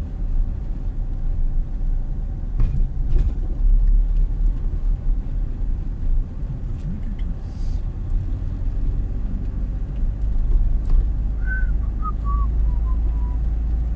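Inside a moving car: steady low rumble of the engine and tyres at low speed. A few short chirps fall in pitch near the end.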